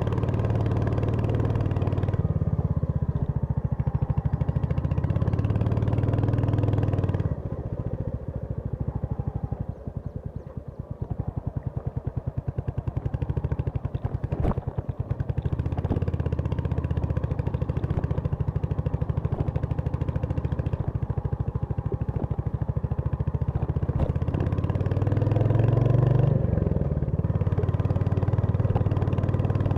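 Royal Enfield Hunter 350's single-cylinder engine running on the move. It eases off and goes quieter for several seconds about a quarter of the way in, then picks up again, with a brief rise and fall in pitch near the end.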